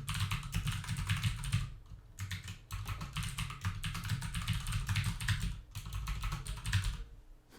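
Computer keyboard being typed on fast, in quick runs of keystrokes with a few short pauses.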